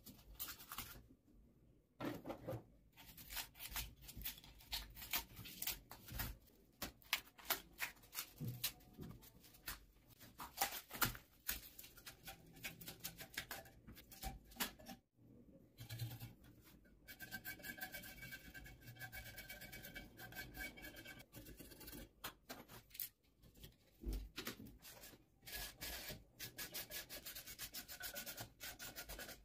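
A small hand blade scraping and gouging a soft, crumbly white block, in quick repeated rasping strokes broken by short pauses, with bits crumbling away.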